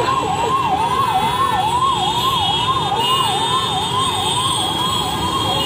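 Fire engine's electronic siren sounding a fast wail, its pitch sweeping up and down about three times a second without a break, over steady street noise.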